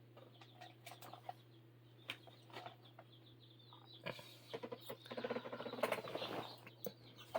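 Faint scattered clicks and rustles of small plastic and metal parts being handled, with a busier stretch of small ticks and scraping about four to six and a half seconds in, over a faint steady low hum.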